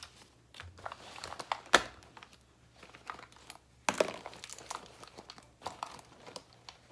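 Makeup items and packaging handled on a counter: rustling and crinkling with scattered clicks and taps. A sharp click about two seconds in is the loudest.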